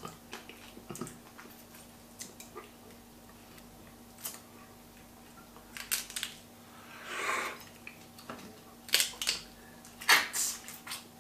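Boiled crayfish shells being cracked and peeled by hand: scattered small clicks and cracks, a short breathy rush of noise a little past halfway, and a few louder cracks near the end.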